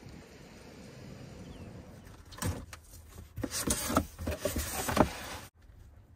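Cardboard box being opened and its contents pulled out: rustling and scraping with sharp knocks. The handling starts about two and a half seconds in, after a steady faint background noise, and cuts off suddenly about five and a half seconds in.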